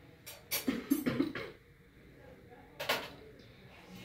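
Steel surgical instruments clinking and tapping as they are set down on a cloth-draped table: several clinks bunched in the first second and a half, and one more about three seconds in.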